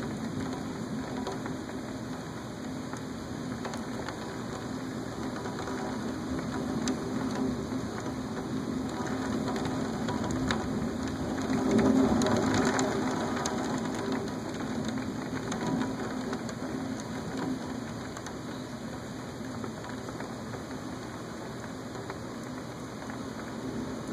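Steady rain falling in a thunderstorm, with a rumble of thunder that swells and peaks about halfway through, then fades back into the rain.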